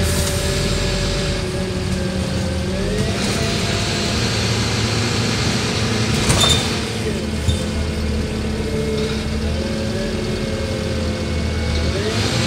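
Scania N230UD OmniDekka double-decker bus under way, heard from the upper deck: its engine and ZF Ecolife automatic gearbox running, with a drivetrain whine that rises and falls in pitch a few times. A brief knock comes about six seconds in.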